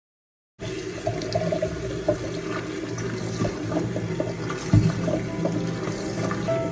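Water running steadily from a tap, with small clicks and knocks over it, starting abruptly after a moment of silence.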